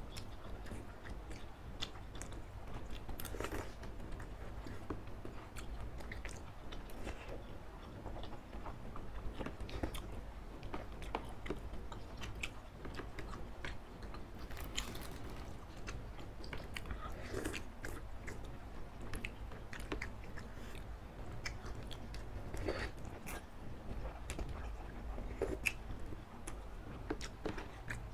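Close-miked chewing and biting of mouthfuls of spicy soup noodles, with many scattered sharp clicks and smacks.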